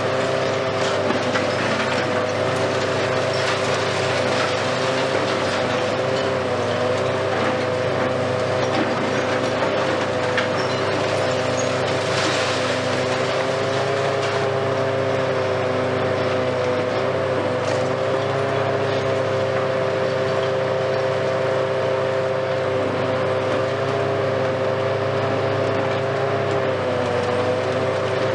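Hitachi Kiesel KMC520 high-reach demolition excavator working: a steady engine drone with a hydraulic whine of a few held tones that waver slightly, over scattered crunching and clatter of broken concrete. A louder rush of falling debris comes about twelve seconds in.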